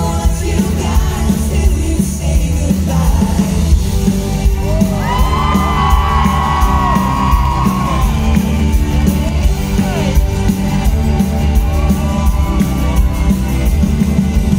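Live pop song played loud through an arena's PA, with a heavy steady bass beat and singing. A voice holds a long high note in the middle, and the crowd yells and whoops over the music.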